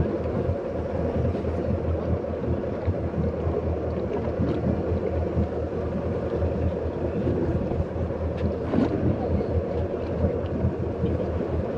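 Boat motor running steadily at low speed, a constant low hum.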